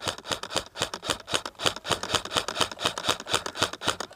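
Airsoft electric rifle firing rapid strings of shots, each shot a sharp click. The strings run at roughly ten shots a second and stop just after the end.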